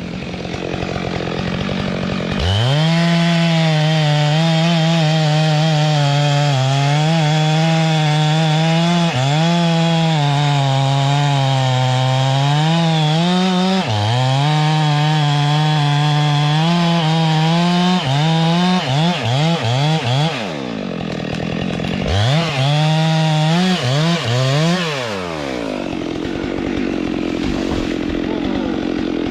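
Chainsaw engine at full throttle cutting through a tree, its pitch sagging and recovering as the chain bites into the wood. Near the end it is blipped in a series of quick revs, revved again, then drops back to a lower, quieter running.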